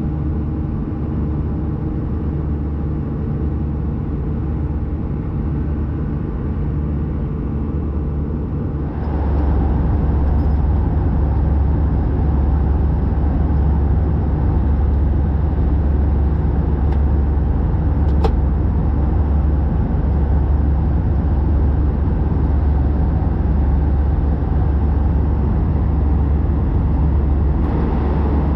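Steady in-flight cabin noise of an Airbus A320-214: a low, even drone and air rush with constant humming tones. About nine seconds in, the sound steps up louder and fuller and then holds steady.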